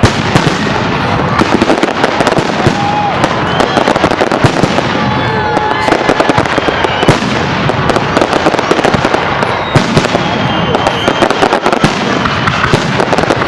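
Fireworks display: a dense run of bangs and crackling bursts going off in quick succession.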